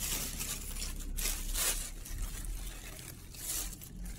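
Thin plastic carrier bag crinkling and rustling in several uneven bursts as hands open it and rummage inside.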